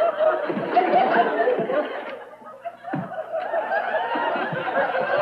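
Audience laughing, many voices at once, dying down briefly about halfway through and then swelling again.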